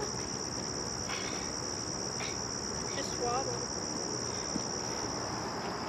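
Insects trilling in a steady, high-pitched chorus that does not let up, typical of crickets or katydids in summer grass and trees.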